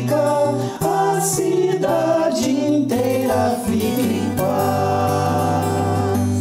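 Several voices singing together over a strummed acoustic guitar, settling about four and a half seconds in on a long held note.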